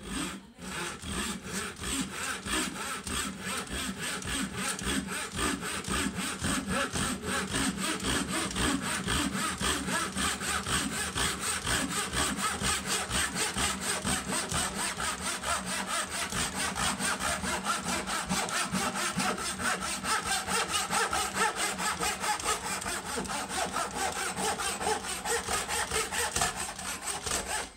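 Lidl Japanese-style pull saw crosscutting a small wooden batten by hand, in fast, even back-and-forth strokes. The uploader finds the blade not sharp: it also cuts on the push stroke and has to be pressed down hard.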